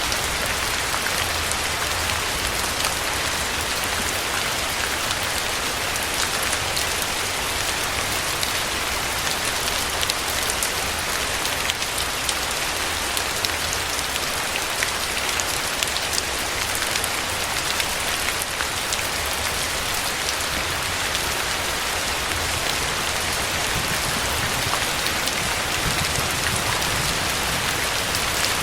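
Steady rain falling, a dense even hiss of drops with many individual drop ticks, over a low steady rumble.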